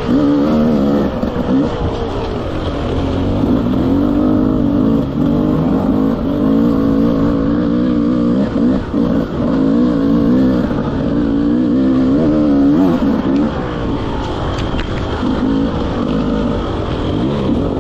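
Enduro dirt bike engine revving under load, its pitch rising and falling over and over as the throttle is worked.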